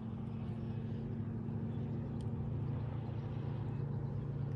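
An engine running with a steady low hum, slowly growing louder.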